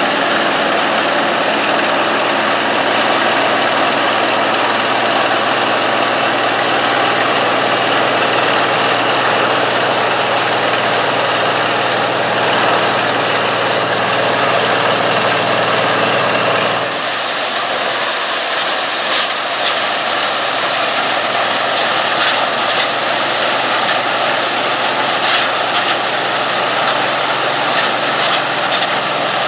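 John Deere 55 EB self-propelled combine running steadily while harvesting soybeans, its engine and threshing machinery making a constant mechanical drone. A little over halfway through, the low engine hum drops away abruptly and a brighter, hissier machine sound with scattered clicks takes over.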